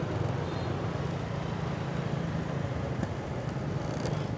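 Motorbike street traffic: a steady low scooter engine hum with road noise as the rider moves slowly among other motorbikes.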